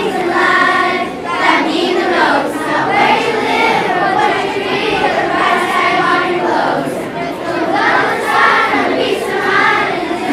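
Children's choir singing a cappella: many young voices singing together with no instrumental accompaniment.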